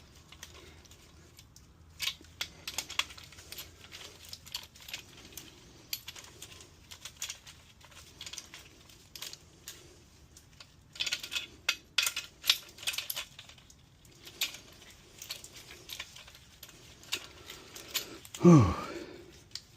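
Light metallic clicks and clinks of hand tools and main-cap bolts being worked on an engine block, in scattered clusters. Near the end, one brief louder sound that falls in pitch.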